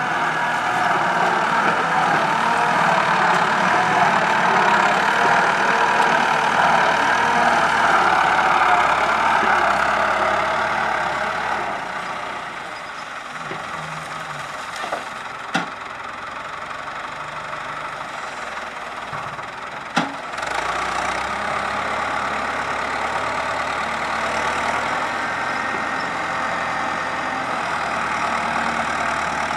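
Sugarcane grab loader's engine running steadily, louder for the first dozen seconds and then a little quieter. Two sharp knocks stand out around the middle.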